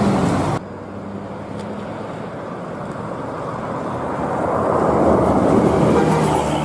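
Intercity coach buses on the road: diesel engine running and tyre noise. The sound changes abruptly about half a second in, then swells louder as a coach approaches and passes close near the end.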